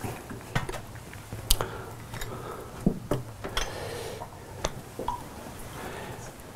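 Scattered light clinks and knocks of small offering cups and ritual implements being picked up and set down on a table.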